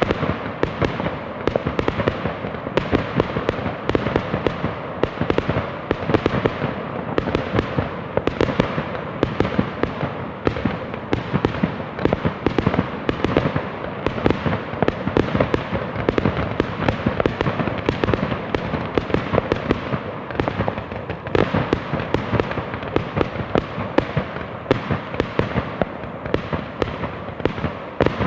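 Fireworks going off in a dense, unbroken barrage: many sharp bangs and crackles overlapping, several a second.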